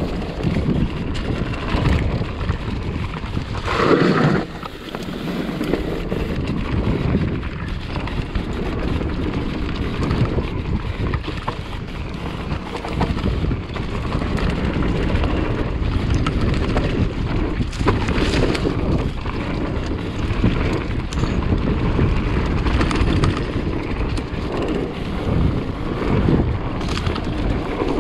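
Wind rushing over the microphone while a mountain bike rattles and knocks over a rough dirt trail on a descent, with irregular clatter throughout.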